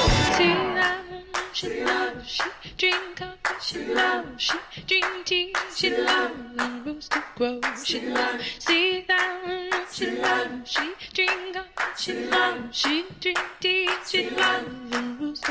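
An a cappella song: a sung vocal line over a steady beat of hand claps, about two claps a second.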